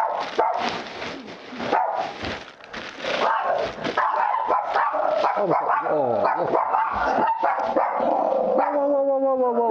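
Small pet terriers barking excitedly in quick, high barks and yips, a near-unbroken volley for most of the stretch, easing briefly about two seconds in.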